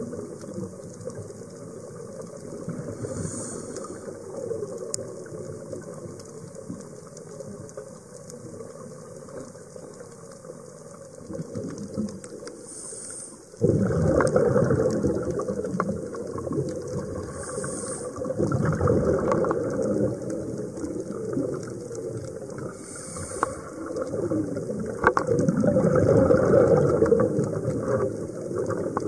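Scuba diver's breathing heard through an underwater camera: a short hiss of inhalation through the regulator every five seconds or so, and the gurgle of exhaled bubbles, with scattered clicks. The sound grows suddenly louder about halfway through.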